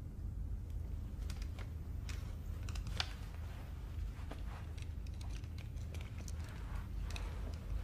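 Scattered small clicks and taps from hands handling wire-rimmed spectacles and objects on a table, the sharpest about three seconds in, over a steady low hum.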